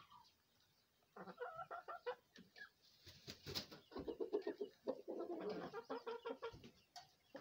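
Chickens clucking, a run of quick repeated clucks and calls that starts about a second in and carries on.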